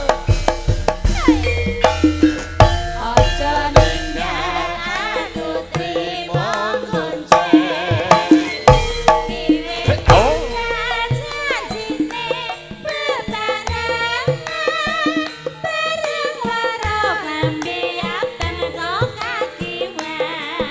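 Javanese gamelan music accompanying tayub: kendang hand drums keep up a busy rhythm under sustained metal tones, with a sliding melodic line above.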